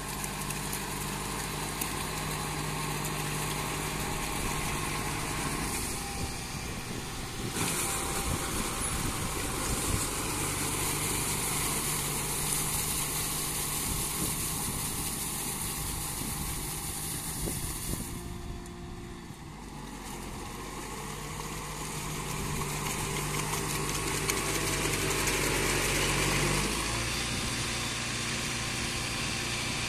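Kubota MU5501 tractor's four-cylinder diesel engine running under load as it pulls a rotary tiller through deep paddy mud. The engine note dips briefly past the middle, then climbs and changes sharply near the end.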